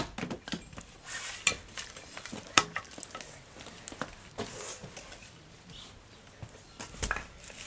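An axe strikes a log on a wooden chopping block with a sharp knock right at the start. Then come scattered light knocks and clatter of split firewood pieces as they are picked up and knocked together.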